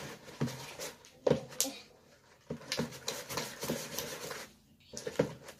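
Wet slime mixture being worked in a plastic bowl: irregular sticky squelches and smacks, with rubbing against the bowl.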